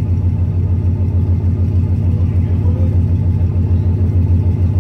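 Ford Mustang's naturally aspirated Coyote V8 idling steadily through open race dumps (exhaust pipes cut off and turned down just ahead of the rear wheels), a low, evenly pulsing note.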